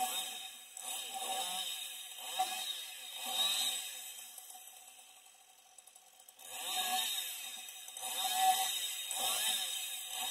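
Chainsaw limbing a felled hemlock: the engine revs up and drops back in short bursts about once a second as each branch is cut, with a pause of about two seconds midway.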